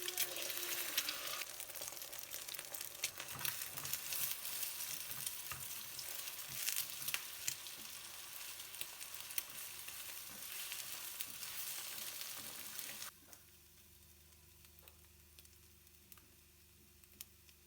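Food frying in a pan, sizzling with sharp crackles and the sound of stirring. About thirteen seconds in the sizzle cuts off suddenly, leaving a low steady hum.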